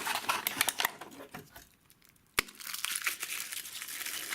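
Wrapping on a surprise egg crinkling and tearing as it is unwrapped by hand, with a brief lull and one sharp click about two and a half seconds in.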